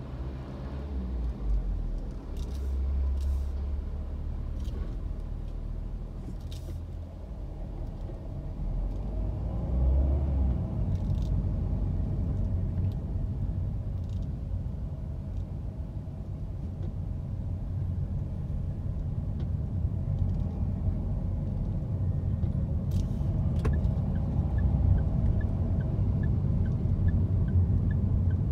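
Low engine and road rumble of a car heard from inside the cabin while driving in traffic, growing louder in the second half as the car moves off and picks up speed.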